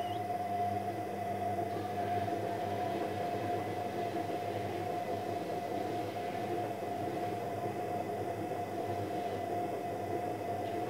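Electrolux washing machine running: a steady mechanical rumble with a constant whine over it.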